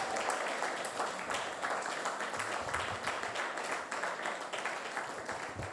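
Congregation applauding, many hands clapping together, slowly dying down near the end.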